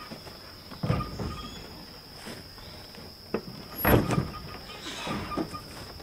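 A Kawasaki Bayou 250 four-wheeler being heaved by hand into a pickup's bed: heavy thumps and clunks, one about a second in and the loudest about four seconds in. A steady high insect drone sits behind.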